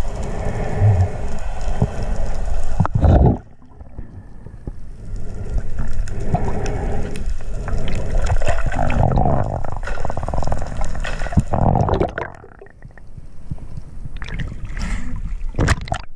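Underwater water noise picked up through a camera housing: rushing and gurgling as the diver swims and handles a speared fish. It drops off sharply about three seconds in, with a few sharp ticks near the end.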